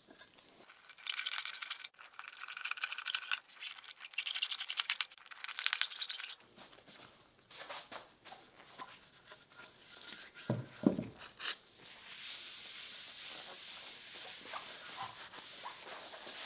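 A hand screwdriver driving screws into a purpleheart cutting board to fasten rubber feet, heard as stretches of fine rapid ticking. Then scattered clicks and a knock, and in the last few seconds a steady rubbing hiss as a paper towel wipes the board's surface.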